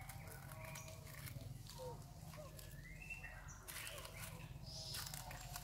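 Faint animal chirps, a few short calls that rise and fall in pitch, over a steady low rumble of outdoor background noise.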